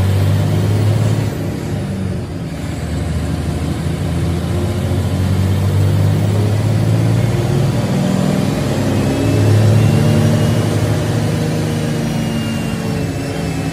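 Diesel engine of a coach bus heard from inside the driver's cab, pulling steadily at highway speed with a low drone and road noise; it eases off briefly about two seconds in, then builds again, loudest around ten seconds in.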